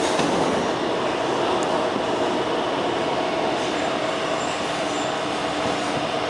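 Taipei Metro C321 train running, heard inside the car: a steady rolling rumble of wheels on track with a faint steady motor hum that drops in pitch about halfway through.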